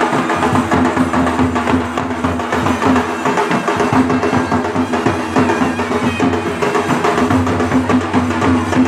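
Folk dance music: fast, steady drumming with clacking percussion over a held tone.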